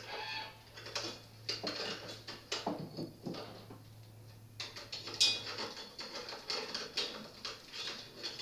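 A broken, gummed-up bicycle chain being pulled off a mountain bike, its metal links clicking and rattling irregularly over the sprockets and derailleur, with a short squeak about five seconds in.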